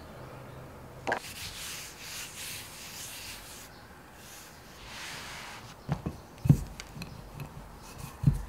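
Hands rubbing and brushing over flour and puff pastry dough on a wooden board, then a few dull wooden knocks near the end as a wooden rolling pin is handled and set down on the dough.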